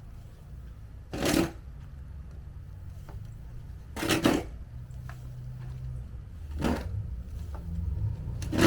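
A short scraping or crunching noise repeated about every two and a half seconds, over a steady low rumble.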